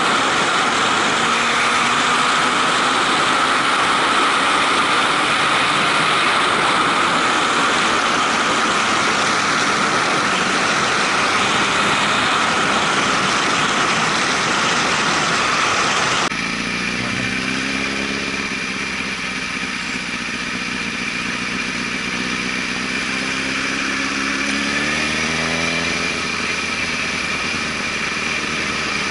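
Motorcycle riding at speed: a steady rush of wind and road noise over the running engine. An abrupt cut about halfway switches to the 2005 Honda CBR1000RR Fireblade's inline-four engine at low speed in traffic, its note rising and falling with the throttle.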